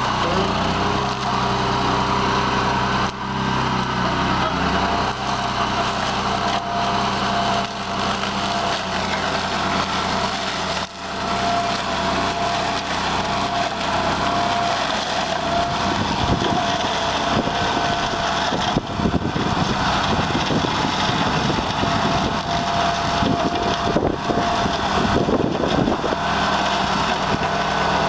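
BCS 749 walk-behind tractor's 13-horsepower Honda gas engine running steadily under load, driving a Berta 26-inch flail mower through dry cornstalks and cowpea vines, with a steady high whine. From about halfway through, a dense crackling and rattling of stalks being chopped joins in.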